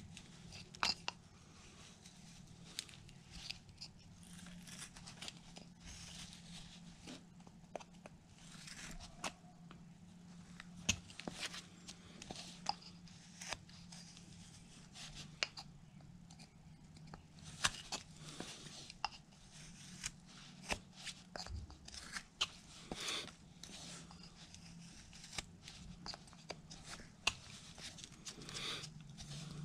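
Carving knife slicing basswood in short, irregular cuts: crisp snicks and small cracks as chips come away, over a faint steady low hum.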